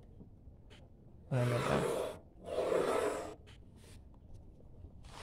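Graphite pencil drawing a line across drawing paper along a ruler: a scratchy stroke lasting about a second, near the middle, with a few faint taps.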